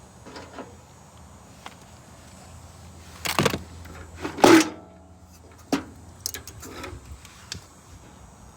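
Knocks and clatter of scrap metal being handled. The two loudest hits come about three and four and a half seconds in, and the second rings briefly.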